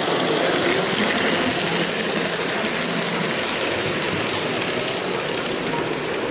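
Model railway train, a model diesel locomotive hauling coaches, running along the layout track with a steady mechanical running noise of small motor and wheels on rail.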